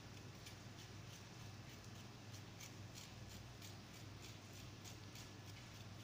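Faint, irregular light ticks from a small metal sieve being tapped to dust powdered sugar over a cake, a few taps a second, over a steady low hum.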